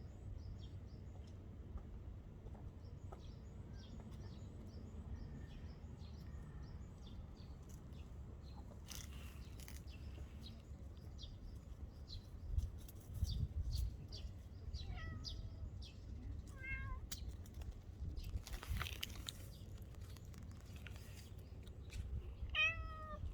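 Stray cat meowing: a few short meows a little past the middle and one more near the end.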